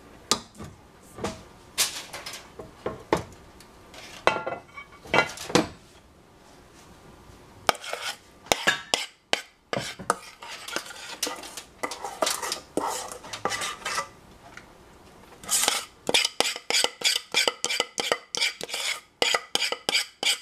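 A spoon scraping and clinking against a stainless steel saucepan as a thick chocolate mixture is stirred and then scraped out of the pan. The scrapes come singly at first, then in quick repeated strokes over the last few seconds.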